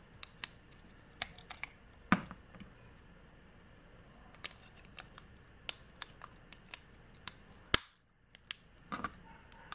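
Scattered light plastic clicks and knocks as a 9-volt battery is worked out of a plastic battery holder and another 9-volt battery is pressed in, with sharper clicks about two seconds in and near eight seconds in.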